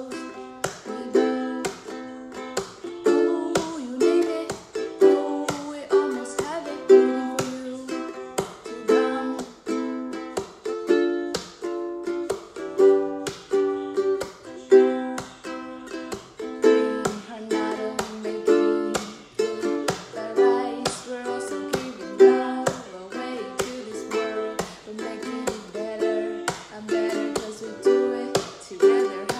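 Ukulele strummed in a steady rhythm, with a woman singing along.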